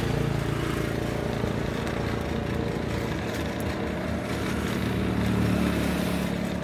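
Hand-cranked air blower whirring steadily as its crank is turned, its fan forcing air into a small wood fire.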